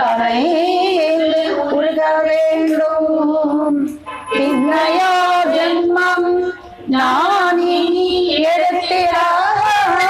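Women's voices singing a devotional song together: long, drawn-out melodic notes with a slight waver, broken by two short breaths, about four seconds in and again near seven seconds.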